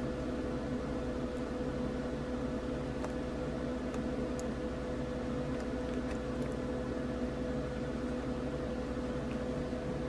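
Steady machine hum with a faint held tone, and a few faint clicks scattered through it.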